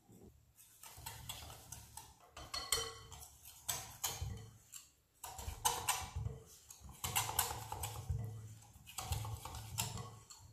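Wire whisk beating rice-flour and iced-water batter in a glass bowl: a quick, uneven run of clicks and taps as the wires strike and scrape the glass.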